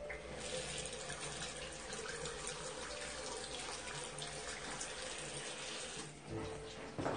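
Water running from a single-lever mixer tap into a ceramic washbasin, splashing over a hand rinsed under the stream. The steady flow cuts off near the end.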